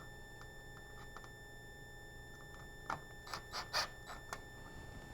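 A few light ticks, then a quick run of five or six short scrapes and clicks about three seconds in: small screws and metal parts being picked up and handled.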